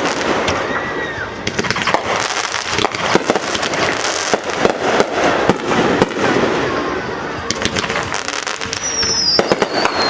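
Fireworks display: a dense run of bangs and crackling bursts, with a high whistle sliding down in pitch near the end.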